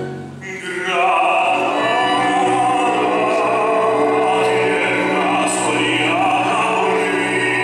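Male tenor singing in an operatic style with vibrato, over a small live band. The voice comes in about a second in, after a brief lull in the music.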